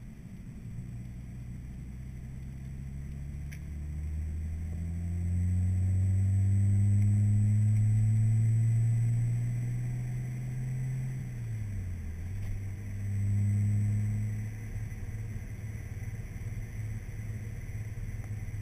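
Car engine heard from inside the cabin while driving, its revs climbing steadily for several seconds under acceleration. About eleven seconds in the revs drop sharply, pick up again briefly, then hold steady at cruise over road noise.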